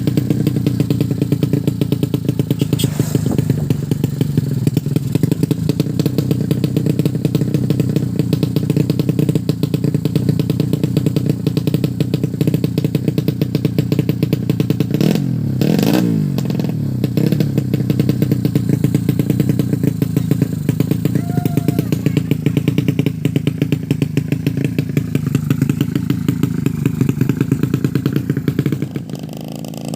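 Tuned 130cc drag-bike motorcycle engine running steadily at a fast idle. Its pitch swings briefly a few seconds in and again about halfway through.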